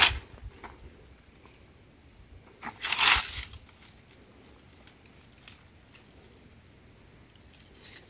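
Dry grass and leaf litter rustling and crunching as a long stick is handled in the undergrowth, with a sharp click at the start and one louder crunching rustle about three seconds in. A steady high insect drone runs underneath.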